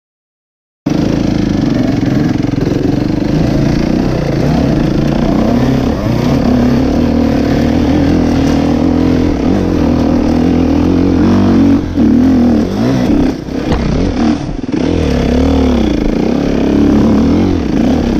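Enduro dirt bike engine running under load as the bike is ridden along a forest trail, its pitch rising and falling with the throttle. It cuts in suddenly about a second in and drops off briefly a few times in the second half.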